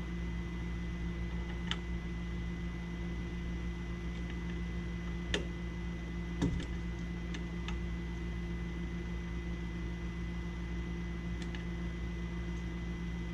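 Small air pump of a pressure switch tester running with a steady hum and a thin high whine, holding pressure on a furnace pressure switch while it is adjusted. A few faint clicks from handling the switch, two near the start and a couple in the middle.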